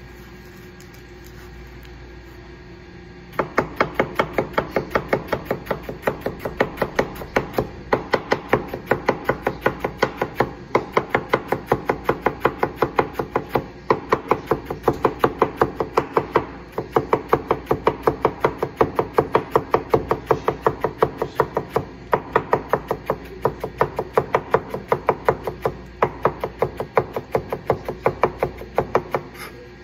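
Tojiro Pro 165 mm nakiri knife chopping rolled leafy greens into fine strands on a plastic cutting board: a fast, even run of blade knocks, about three to four a second, starting about three seconds in, with a couple of brief breaks.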